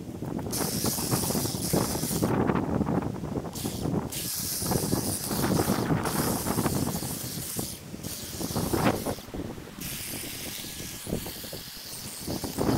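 Power lawn equipment working through overgrown grass: a continuous noisy hiss with many short crackles.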